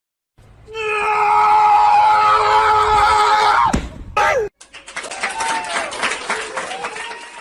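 A loud, long scream held on one pitch for about three seconds that drops away as it breaks off. A short falling cry follows, then a noisier stretch of further shrieks and crowd-like noise.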